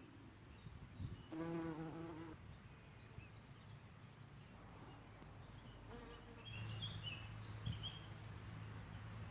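A bee buzzing close to the microphone: a brief, higher-pitched buzz about a second in, then a lower, steady buzz from about six and a half seconds.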